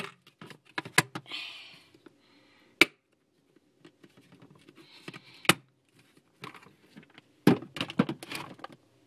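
A clear plastic storage box being handled and set down: a handful of sharp clicks and knocks of hard plastic, with short rustles between them.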